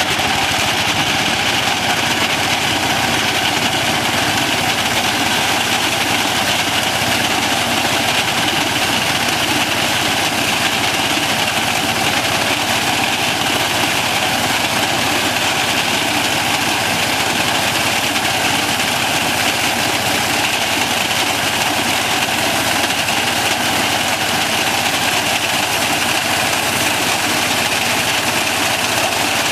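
Small compact tractor's engine running steadily while it drives a front-mounted reaper through standing wheat.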